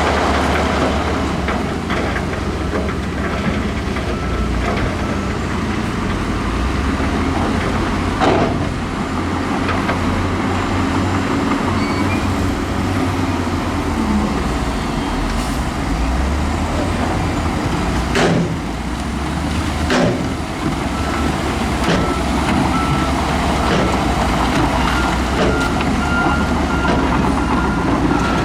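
Heavy diesel earthmoving machinery running loud and steady while working rock and dirt, with three sharp clanks. In the second half a reversing alarm starts beeping in short, evenly repeated beeps.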